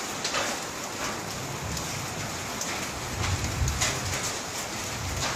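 Ash- and sand-laden volcanic rain pattering steadily, with many small scattered ticks of drops and grit striking surfaces. A low rumble swells underneath from about a second and a half in until near the end.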